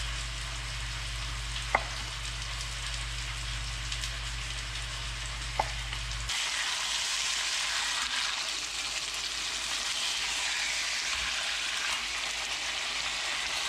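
Chicken pieces sizzling steadily as they sear in hot olive oil in a Dutch oven, louder from about halfway through. Two sharp knife taps on a wooden cutting board come in the first half as a lemon is sliced thin, over a low hum that stops midway.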